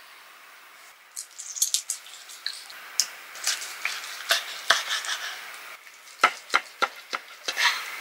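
Kitchen knife slicing through boiled pork belly on a wooden board while metal tongs hold the meat, making short scraping and clicking sounds that start about a second in. A run of sharp knocks comes a little past the middle.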